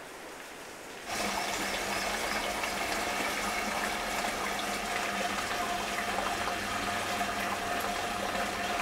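Hot-spring water welling up from a pipe outlet and churning in a pool: a steady rushing with a constant hum under it, starting suddenly about a second in after a faint even hiss.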